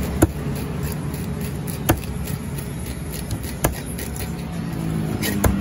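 A knife chopping pieces of raw tuna on a wooden chopping block: four sharp knocks of the blade striking the wood, spaced about a second and a half to two seconds apart, over a steady low background rumble.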